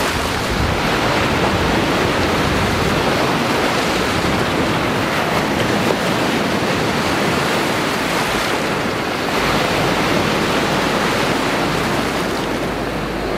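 Small lake surf waves breaking and washing up on a pebble shore, a steady rush of water. Wind buffets the microphone with a low rumble in the last few seconds.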